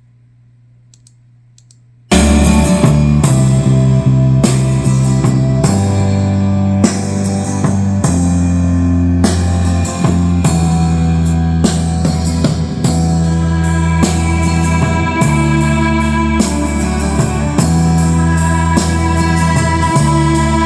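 A song with guitar and drums played back through an AUKTECH T217 portable Bluetooth speaker, with strong bass. It starts suddenly about two seconds in, after a faint low hum.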